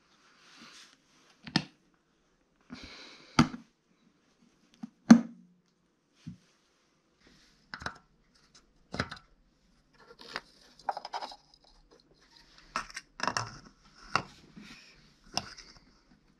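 Scattered knocks, clicks and brief rustles of hands handling a plastic engine-oil bottle, then the engine's oil filler cap and a plastic funnel being fitted into the filler neck. The loudest is a single knock about five seconds in.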